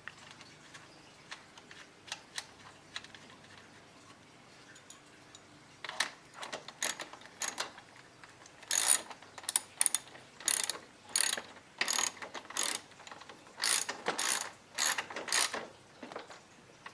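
Hand ratchet wrench clicking in short, repeated strokes as it tightens the fastener of a mower's new front wheel. There are faint, scattered clicks at first, then from about six seconds in a steady series of quick ratchet runs, each under half a second.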